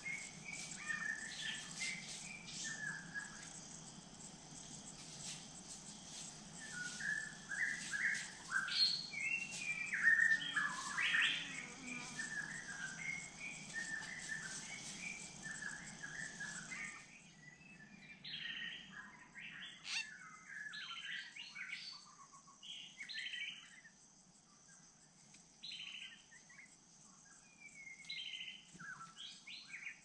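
Tropical forest birds chirping and calling, many short overlapping notes. A steady high insect hum lies under them and cuts off suddenly a little past halfway, leaving the bird calls over a quieter background.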